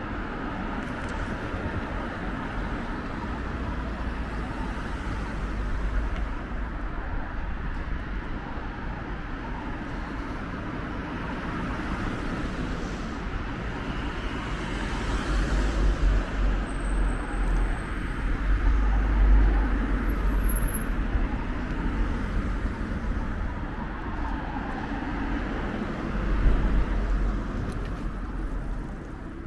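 Steady road traffic on a busy city street: cars and vans passing with a low rumble, growing louder for a few seconds in the middle and again near the end.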